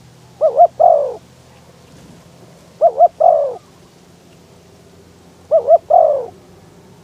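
Spotted dove cooing three times, about two and a half seconds apart. Each call is two quick notes followed by a longer, falling 'krooo'.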